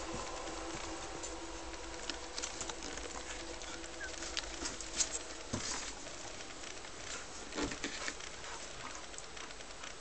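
Scattered soft clicks and rustles, the loudest about five and nearly eight seconds in, with one faint short squeak from a newborn puppy about four seconds in, over a faint steady hum.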